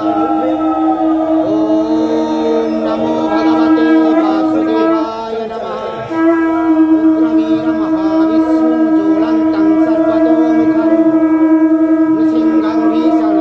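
Conch shell blown in two long, steady blasts, the first about five seconds long and the second, after a short break, about seven seconds, sounding during the lamp offering.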